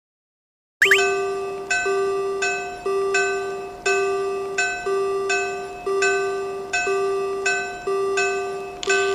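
Silent for the first second, then a Japanese railroad crossing alarm bell sounding its repeated 'kan-kan', about one and a half strikes a second, each strike ringing and fading.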